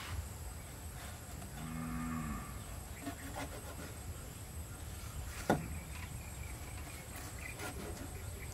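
A knife cutting through a slab of raw pork on a wooden chopping block, with one sharp knock of the blade on the board about five and a half seconds in. A cow moos once, low and brief, about two seconds in.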